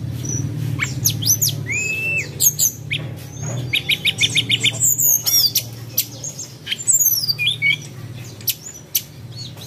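Several birds calling over one another: short chirps and squawks, with a quick trill of about eight even notes around four seconds in. A steady low hum runs underneath.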